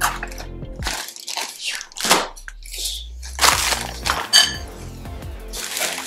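Plastic and paper packaging crinkling and rustling in bursts as a roll of ready-made pastry is unwrapped, with one short ringing clink a little past four seconds in, over background music.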